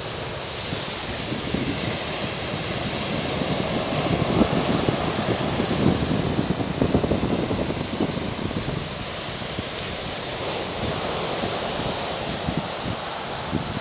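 Wind buffeting the microphone over the steady rush of ocean surf, the gusts louder around the middle.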